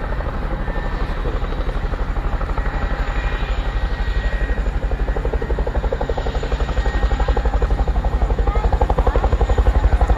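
Boeing Chinook HC2 tandem-rotor helicopter's rotors beating with a rapid, steady blade thud, likely under power as it slows after a running landing. It grows louder towards the end.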